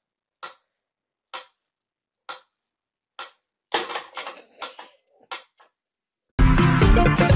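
Mechanical pyramid metronome ticking about once a second, four crisp clicks, then a short run of knocks and rattles about four seconds in, after which the ticking stops. Loud music comes in near the end.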